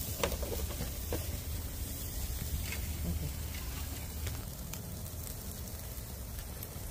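Rack of ribs sizzling as it sears on a hot grill: a steady hiss with a few sharp pops scattered through it.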